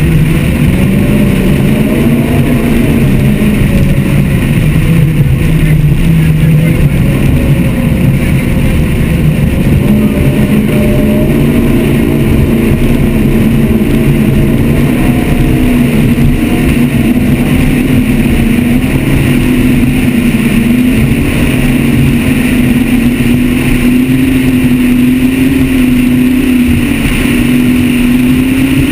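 Mercury Marine engines of a 43-foot offshore catamaran powerboat running at speed, with a steady drone that wavers in pitch and steps up slightly about ten seconds in, over constant wind and water rush.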